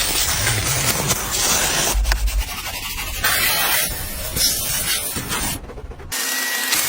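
Car-washing sounds: hissing spray and scrubbing on the car's surface, in short clips that change abruptly several times.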